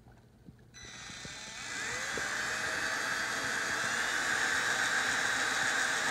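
Ryobi electric drill with a 1/16-inch bit starting up about a second in, its whine rising as it spins up, then running steadily while drilling a small pilot hole.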